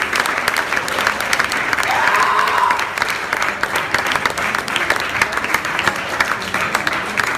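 Audience applauding steadily in a small club as the band returns for an encore, with a faint whoop about two seconds in.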